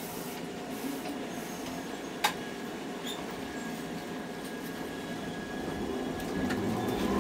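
Hankai Tramway streetcar heard from inside, running with a steady rumble and a single sharp click about two seconds in. Near the end the level climbs as a rising motor whine begins, the tram picking up speed.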